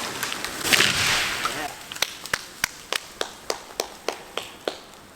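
A 60-foot spruce crashing down at the end of felling, its branches tearing through the canopy in a loud rush, followed by a run of sharp cracks about three a second that grow fainter.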